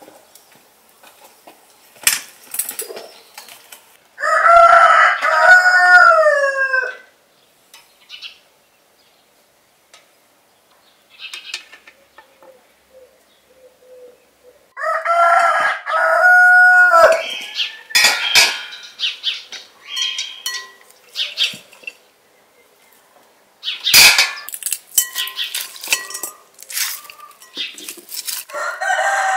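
A rooster crowing loudly twice, each crow about two and a half seconds long and ending on a falling note, with a third crow starting near the end. Between the crows come sharp clinks and knocks of metal skewers as cooked lamb is slid off them into a glass bowl.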